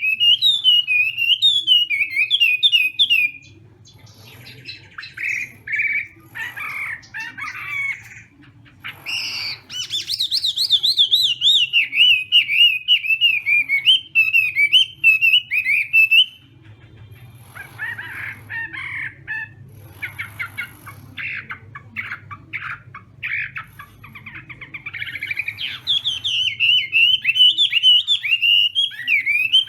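Chinese hwamei singing a loud, rapid warbling song of quickly repeated up-and-down phrases, broken in two middle stretches by choppier, scattered notes before the full warble returns near the end.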